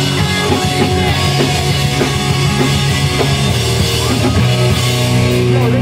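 Pop-punk band playing loud live: distorted electric guitars, bass and a pounding drum kit.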